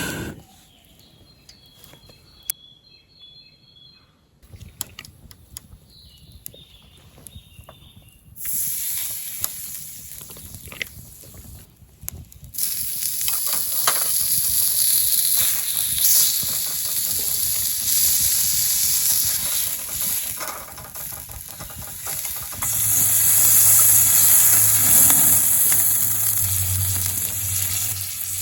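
Food frying in a pan, sizzling: after a quiet start the sizzle comes in about eight seconds in and grows loud about four seconds later, staying strong to the end.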